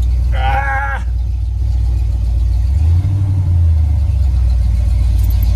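Classic Ford pickup truck driving, heard from inside the cab: a steady low engine drone with road noise. About three seconds in, the engine note rises briefly.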